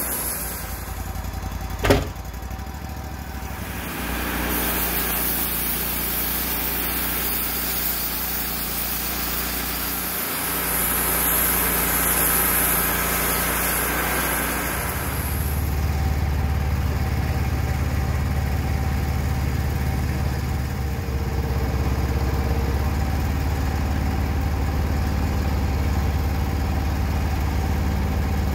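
Wood-Mizer portable band sawmill running, its blade sawing through a white oak log with a steady hiss over the engine. About halfway the cutting hiss stops and a deeper, steady engine drone carries on. A single sharp click comes about two seconds in.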